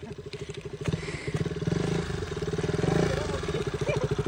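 KTM motorcycle engine running with a rapid, even firing pulse and being revved harder, growing louder, while the bike is stuck in deep sand.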